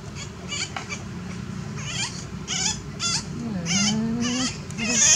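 Baby monkey giving repeated shrill, wavering squeaks, about two a second, while being soaped and washed by hand.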